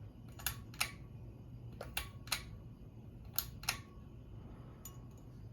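Ceiling fan's pull-chain speed switch clicking as it is pulled, about four times, each pull a pair of sharp clicks roughly a third of a second apart, over a faint steady low hum.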